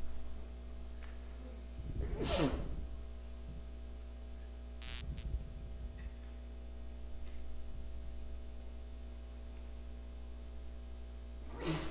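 Steady electrical mains hum through a quiet room, with a few brief sounds over it: the loudest about two seconds in, falling in pitch, a short hiss about five seconds in, and another near the end.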